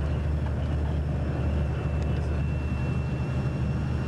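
Steady low drone of a tour coach's engine and road noise, heard from inside the moving bus, with a faint thin high whine from about two seconds in.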